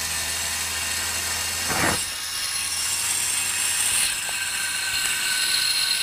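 Homemade aeolipile (Heron's steam engine) running: a steady hiss with several thin high whistling tones. About two seconds in, a short puff is heard and a low hum stops, while the hiss and whistling go on.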